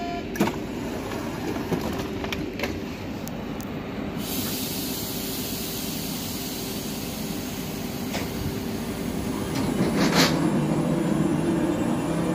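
Z2N double-deck RER electric train at a platform: several sharp clunks in the first few seconds as the doors close, then a loud steady hiss of air from about four seconds in. Near the end a rising whine sets in as the train starts to pull away.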